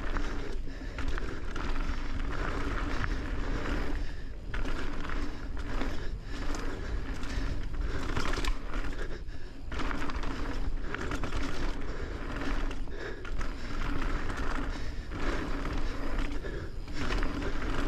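Mountain bike descending dirt singletrack: knobby tyres rolling and crunching over dirt and leaves, with the bike rattling over bumps in an uneven, continuous rush of noise.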